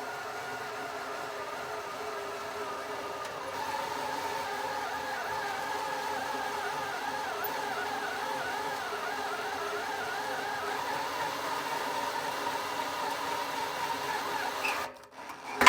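Electric drill turning a 1-inch rotor broach (annular cutter) through the wall of a steel oil pan: a steady motor whine whose pitch wavers as the cutter is loaded. It stops about fifteen seconds in, followed by a sharp knock.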